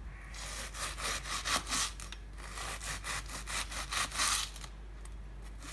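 Knife slicing a half head of cabbage very thin on a wooden cutting board: a quick run of crisp crunching cuts, each with the blade tapping the board. The strokes ease off near the end.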